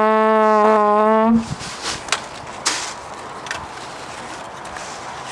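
A loud, long held tone at a steady pitch, lasting about two and a half seconds and ending about a second and a half in, signalling the start of an airsoft game. It is followed by a quieter stretch of outdoor movement with a few sharp clicks.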